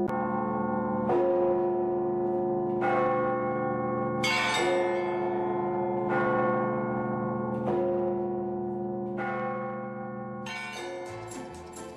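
Church bells ringing: a bell struck about every one and a half seconds, each stroke ringing on. Near the end the bells fade and a music track of quick, short notes begins.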